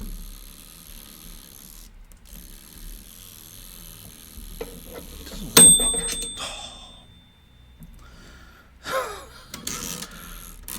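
Mechanical timer bell of a Burco commercial toaster dinging once: a single bright ring that dies away over about a second, amid light handling noise.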